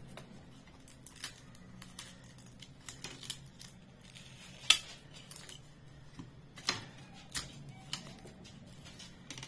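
Scattered small clicks and taps of plastic and metal parts being handled and pried as the LCD screen and its circuit board are worked out of a digital bathroom scale's plastic housing, with the sharpest click a little before halfway. A faint steady low hum runs underneath.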